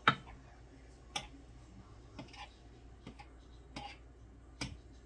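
A knife clicking against a glass baking dish as it is drawn through cake batter in lines, about once a second, the first click the loudest.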